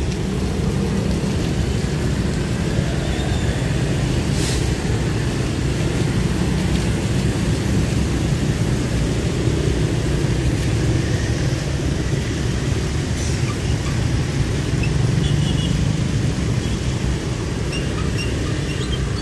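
KAI diesel-electric locomotive running light, its engine giving a steady low rumble as it moves slowly up to a rake of passenger carriages to be coupled.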